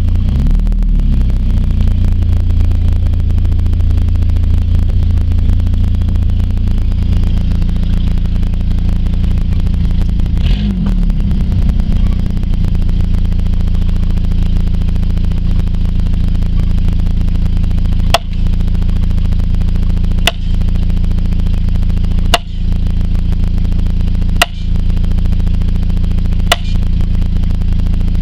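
A vehicle engine running steadily, heard from inside the cab. In the second half a wooden trellis post is pounded: five sharp knocks about two seconds apart.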